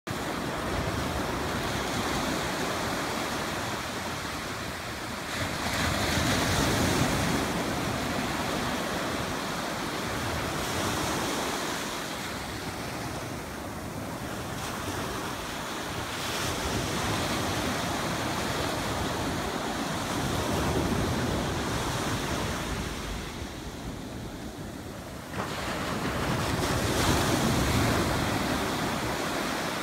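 Ocean surf breaking and washing up a sandy beach. The wash rises and falls with each set of waves: loudest about six seconds in and again near the end, after a lull that ends with a sudden surge.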